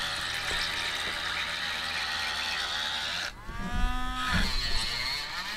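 Parkside cordless rotary tool running with a steady high whine as its diamond burr grinds a pebble under water. About three seconds in, the sound dips briefly and the motor's pitch starts wavering up and down.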